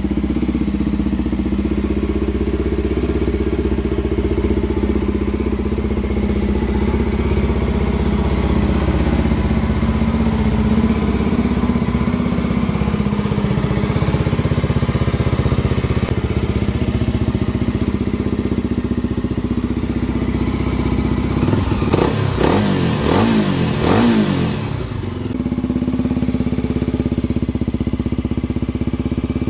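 Irbis Z1 250's single-cylinder 250 cc engine idling steadily, revved in several quick rising-and-falling blips about three quarters of the way through, then settling back to idle.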